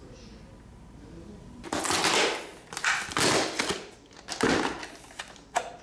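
Clear plastic blister pack on a cardboard card being torn open by hand: a run of crinkling, crackling bursts that starts about two seconds in.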